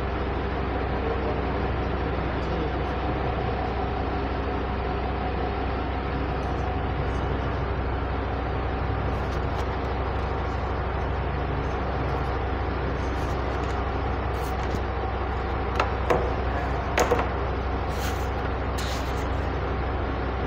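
Steady low hum and hiss of room noise, with a few sharp knocks about sixteen to seventeen seconds in.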